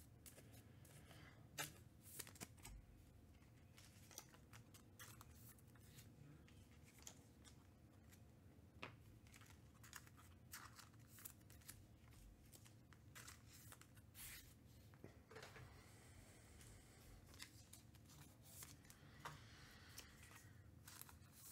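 Faint handling of trading cards: scattered small clicks and soft rustles as cards are slid and sorted, with a longer rustle about sixteen seconds in, over a low steady hum.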